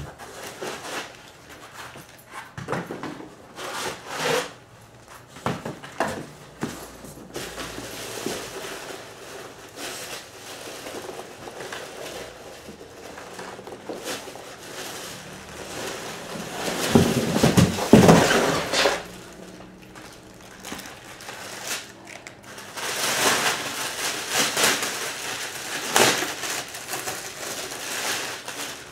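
Unpacking noises: packaging rustling and crinkling, with scattered knocks and handling sounds. The loudest stretch of handling comes a little past the middle.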